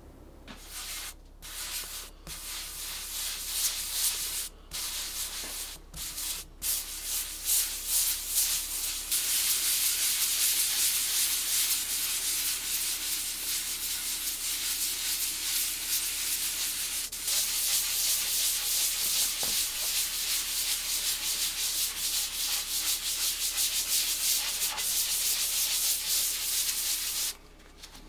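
Cloth polishing ball rubbed briskly over bare wood veneer, working a powder-and-shellac mixture into the pores before French polishing: a dry, hissing scrub. It comes in short strokes with brief pauses over the first several seconds, then runs continuously until it stops abruptly near the end.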